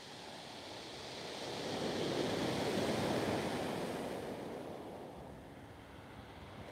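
Sea surf breaking and washing on a shingle beach, one swell building about a second in, peaking, then fading away.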